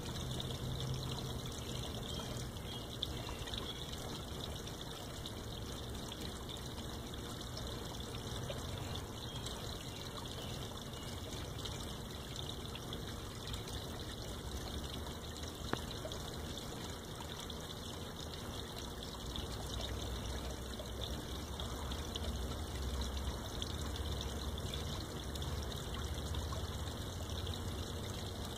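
Water pouring and trickling steadily into a garden koi pond.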